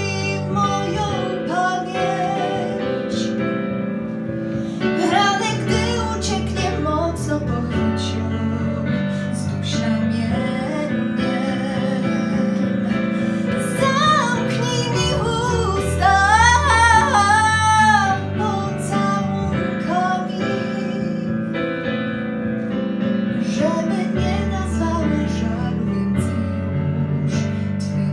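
Teenage girl singing a ballad into a handheld microphone over an instrumental backing track, belting a loud held high note with wide vibrato about two thirds of the way in.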